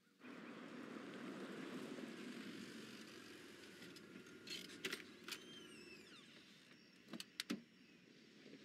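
A car pulling in: engine and tyre noise that starts suddenly and slowly fades. A few sharp clicks and knocks follow, about five and seven seconds in.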